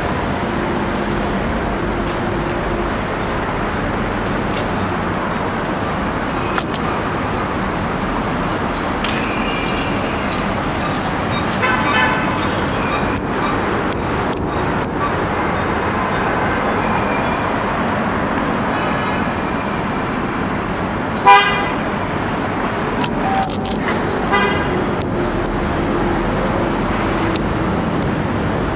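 Steady city street traffic noise, with a short, loud vehicle horn toot about two-thirds of the way through and a few fainter horn-like tones.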